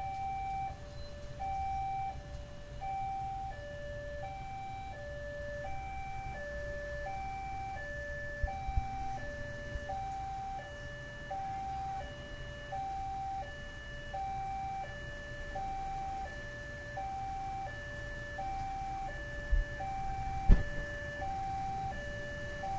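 Level-crossing warning alarm ringing, an electronic signal that alternates steadily between a high and a low tone, each about half a second long: the sign that the crossing is closed for an approaching train. Motorcycle engines idle underneath, and a sharp knock stands out about twenty seconds in.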